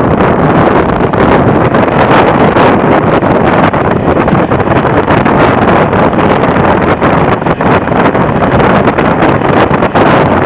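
Loud, steady wind rushing over the microphone held out of a moving passenger train's window, mixed with the train's running noise on the track.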